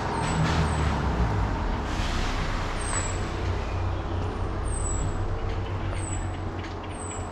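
Street traffic: a heavy road vehicle's engine rumble passing, easing off slightly near the end, with short high falling chirps recurring over it.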